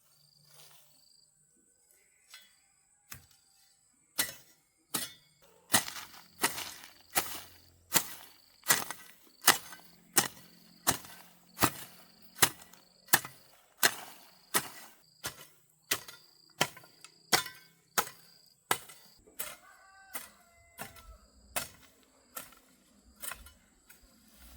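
A hand tool striking wood over and over: a few scattered blows at first, then a steady rhythm of about three blows every two seconds.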